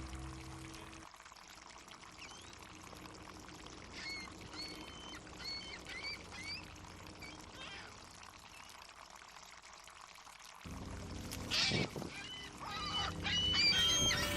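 Harbor ambience: water lapping, with a run of short, repeated gull calls about four seconds in. Near the end a low steady drone comes in, with a brief loud rush and more gull calls.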